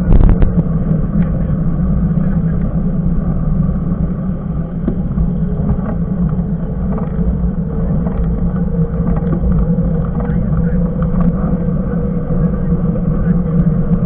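Steady rushing noise of a mountain bike rolling along an asphalt road: wind buffeting the bike-mounted camera's microphone and the hum of knobby tyres on the tarmac, with a faint steady tone and a few small clicks.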